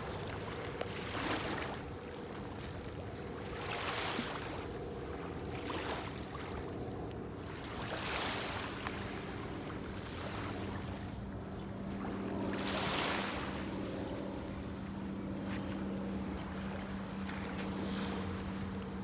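Small waves washing onto a sandy beach, with a swell of wash every few seconds, each about a second long, over a faint steady low hum.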